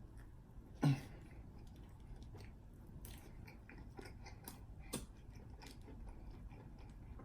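Close-up chewing of food: faint wet mouth clicks and smacks, with a sharper click about a second in and another about five seconds in.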